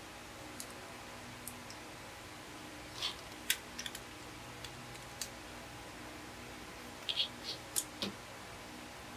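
Plastic LEGO Technic beams and gears clicking and knocking as they are handled and pressed together: scattered sharp clicks, a cluster about three seconds in and another near the end, over a faint steady hum.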